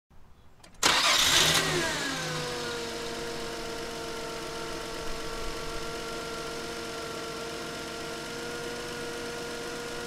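Car engine starting about a second in: a few faint clicks, then it catches with a brief rise in revs that falls away over a second or so and settles into a steady idle, heard at the exhaust tailpipe.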